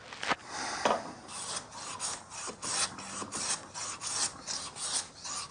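Metal bench plane taking shavings along the grain of a pine block in a quick run of short, rasping strokes, several a second, after a couple of knocks in the first second.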